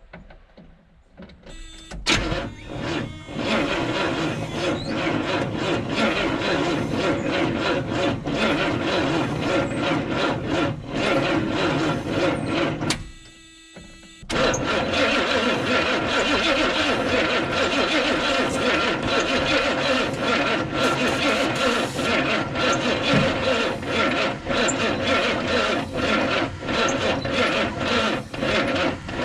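1971 Buick GS V8 turning over in two long start attempts, the first starting about two seconds in and the second just after a one-second break about halfway through. It runs rough and uneven without settling into an idle, the engine's first start after sitting for almost 40 years.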